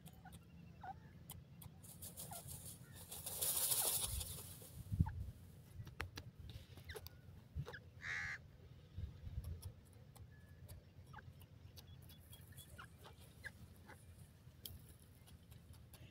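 Grey francolin dust-bathing in loose sand: scratching and rustling of sand and feathers, with a louder hiss of flung sand about three to four seconds in. A single short bird call about eight seconds in.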